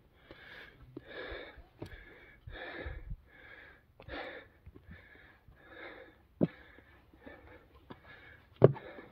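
A person breathing hard and fast, out of breath, in quick even puffs. Two sharp knocks stand out, one about six seconds in and a louder one near the end.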